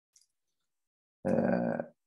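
A man's voice making one short vocal sound, a brief hum or murmured syllable, about a second and a quarter in, after a second of silence.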